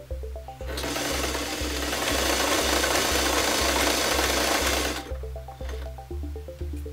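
White Model 642 domestic sewing machine running steadily as it stitches a decorative stitch. It starts just under a second in and stops about five seconds in, over background music with a steady beat.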